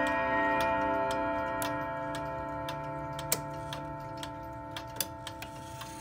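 Girod wall clock's chime rods ringing on and slowly dying away after a chime phrase, over the movement's steady ticking.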